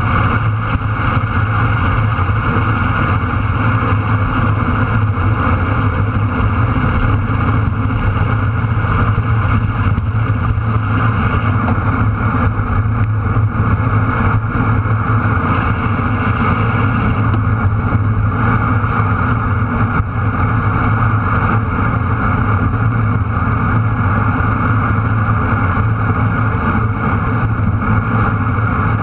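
Steady wind rush and rumble buffeting an action camera's microphone on a road bicycle rolling at speed, with the hum of tyres on asphalt.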